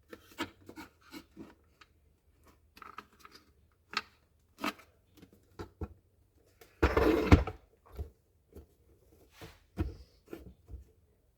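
Scattered clicks, taps and rubbing from hands handling the plastic turn signal light assembly and its bulb, with one louder scrape about seven seconds in.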